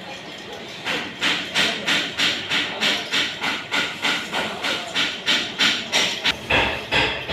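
Hand tool working metal in steady repeated strokes, about three a second, starting about a second in.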